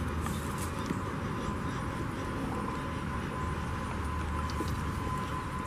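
Steady outdoor background noise: an even hiss over a low hum, with a faint thin whine held steady throughout.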